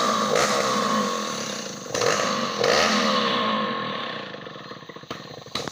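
Two-stroke Motoyama chainsaw running at high revs as it rips lengthwise through a meranti log. It surges twice about two seconds in, then eases off and drops much quieter near the end.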